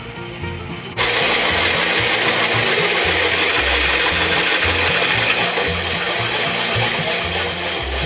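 Woodland Mills HM130MAX portable bandsaw mill running, a loud, steady noise that starts abruptly about a second in.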